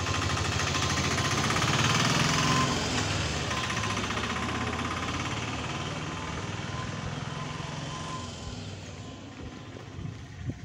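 A motor vehicle's engine running with a fast, even pulse, loud at first and then fading away over about six seconds.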